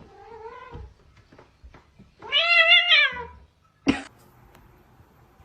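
Domestic cat meowing twice: a short, quieter meow, then a louder, longer meow about two seconds in that rises and falls in pitch. A single sharp click follows about four seconds in.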